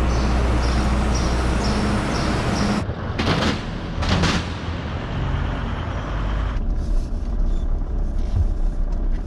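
An old van's engine running as it drives through and out of a border vehicle-scanner hangar. A high beep repeats about two or three times a second over the engine in the first few seconds, with two loud whooshes a few seconds in. Later the engine is heard more muffled from inside the cab.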